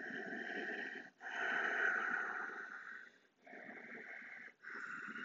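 Deep, audible breathing from a person holding a reverse tabletop yoga pose: four long breaths in and out, the second the loudest.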